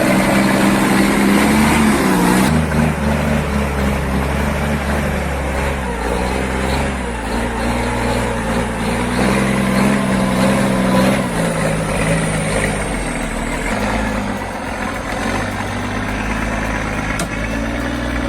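Freightliner FLB truck's diesel engine running steadily, its pitch dropping and rising in a few steps as the revs change.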